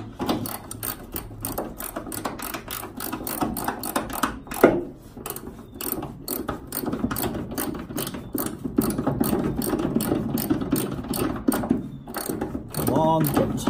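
Socket ratchet clicking rapidly and steadily as it tightens an M12 bolt through the top mount of a hydraulic suspension ram, with one louder knock about four and a half seconds in.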